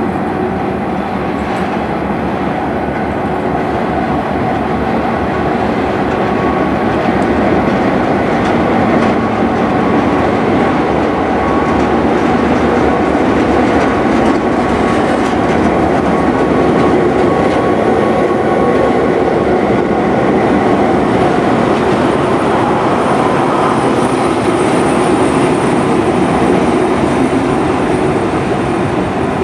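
Diesel-hauled passenger train passing close by: the engine of 42 class diesel-electric locomotive 4204 running as it goes past, with the rolling of the carriages' wheels on the rails. It grows a little louder through the middle as the locomotive comes level and stays loud as the carriages and trailing 47 class locomotive 4716 go by.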